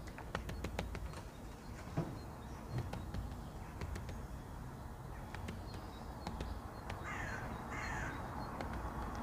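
Great spotted woodpecker pecking at a wire-mesh peanut feeder, giving scattered sharp taps. About seven seconds in, another bird gives two harsh calls about a second apart.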